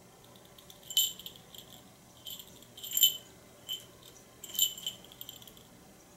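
A small jingle bell jingling in short, irregular shakes, about six of them, as a cat rears up and bats at a feather wand toy.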